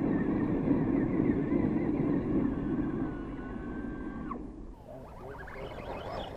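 Electric motors of radio-controlled trucks driving on gravel: a thin whine that rises and falls with the throttle, over a dense low noise. It stops suddenly about four seconds in, leaving quieter outdoor sound with a voice near the end.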